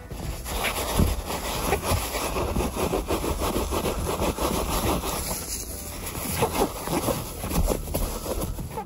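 Gloved hand rubbing and scrubbing a stitched leather car seat close to the microphone, a run of irregular, repeated rubbing strokes.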